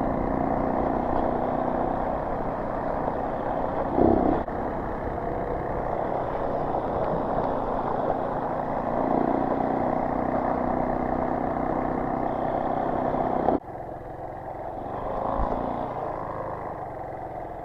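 Motorcycle engine running under way on a ride, with wind noise on the microphone. There is a brief surge about four seconds in, and the sound drops off suddenly a little over three-quarters of the way through, then continues more quietly.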